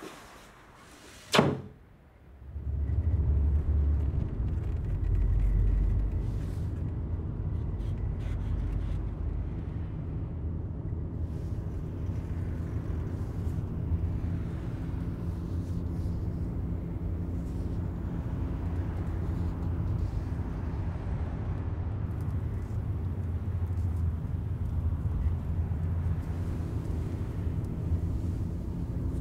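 A door bangs shut once, about a second and a half in. Then a steady low rumble of a car driving, heard from inside the cabin, takes over.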